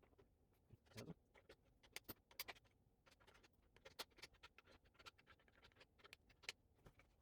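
Faint, irregular clicks and scrapes of parts and hardware being handled while fitting the seat onto an exercise bike.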